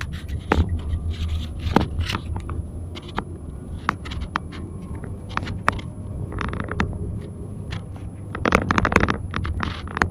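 Car cabin noise while driving: a steady low road-and-engine rumble, with frequent sharp clicks and scraping rattles on top, thickest for about a second near the end.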